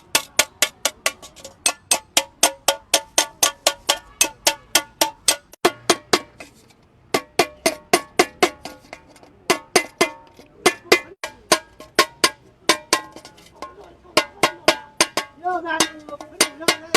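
Hammer striking a sheet-metal bucket in quick, even blows, about three to four a second, each ringing briefly, as the rim is folded over and crimped. The hammering stops for about a second midway, then resumes.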